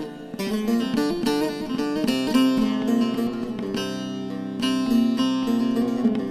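Instrumental interlude of a Turkish folk song (türkü): a plucked string instrument plays a quick melody of many short notes with no singing.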